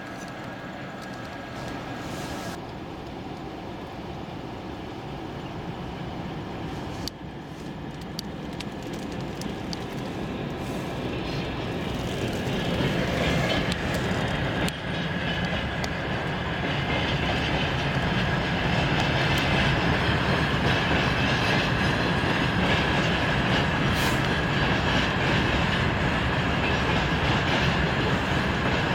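Freight train of covered hopper wagons rolling past with its wheels clattering. The noise builds from about halfway through and stays loud and steady to the end.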